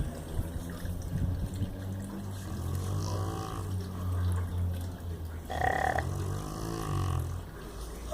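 Rottweiler snoring: a low, steady drone that swells and eases and stops about seven seconds in.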